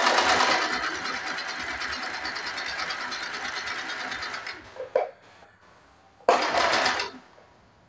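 Compact electric sewing machine stitching a straight seam at a fast, even pace for about four and a half seconds, then stopping. A short click follows, and the machine runs again briefly for about a second near the end.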